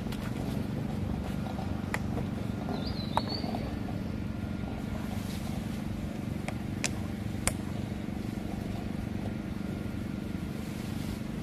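Sharp plastic clicks and crackles as a young macaque bites and twists at the cap of a plastic water bottle, a few times over a steady low hum.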